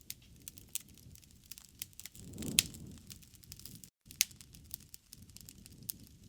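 Wood fire crackling in a fireplace: irregular sharp pops and snaps over a soft low rumble of flames. The loudest pop comes about two and a half seconds in, on a brief swell, and the sound cuts out for an instant about four seconds in.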